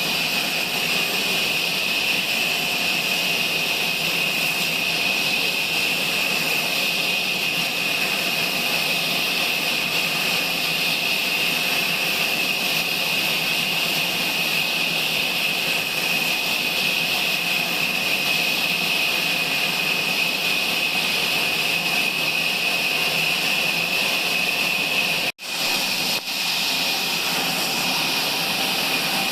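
Sawmill machine running steadily: a constant high whine over a loud hiss, broken by an abrupt instant of silence about 25 seconds in.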